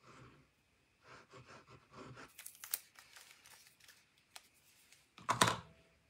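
Tape-runner adhesive drawn in several short strokes along a strip of paper, a scratchy rasp with small clicks. About five seconds in comes a louder paper rustle and knock as the glued strip is lifted and handled on the mat.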